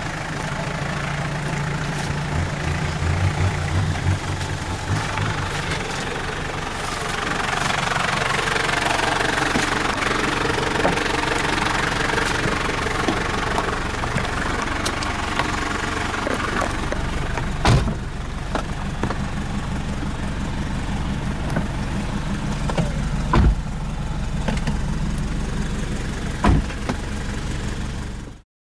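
Off-road 4x4 engine running at low speed on a rough dirt track, with a steady hum at first and a broader rushing noise through the middle. Three sharp knocks come in the second half.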